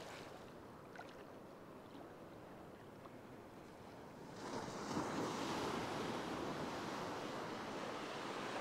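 Surf washing around the shallows, quiet at first, then growing louder about four seconds in as a wave breaks and runs in, and staying at that level.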